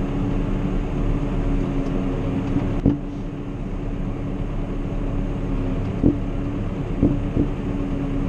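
Valtra tractor's diesel engine running steadily with a constant hum, heard from inside the cab. A few short knocks come through, about three seconds in and twice more around six to seven seconds in.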